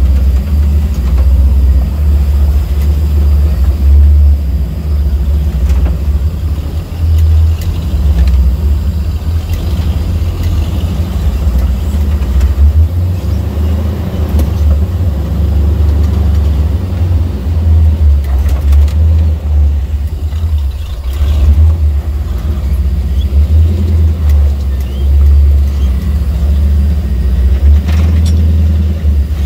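Off-road vehicle engine running at low speed with a steady deep rumble that rises and falls a little, as the rig crawls over rock.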